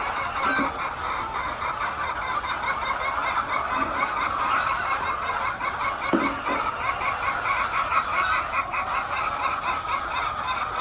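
A large flock of chickens clucking, many birds calling over one another without a break.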